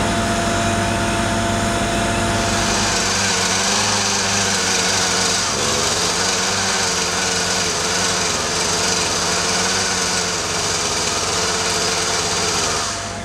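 Engines of fire-service equipment at a building fire running steadily. About three seconds in, the deep drone gives way to a higher-pitched small engine whose pitch wavers slightly.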